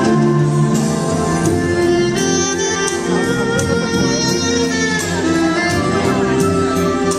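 Waltz music with sustained melodic lines over a steady accompaniment.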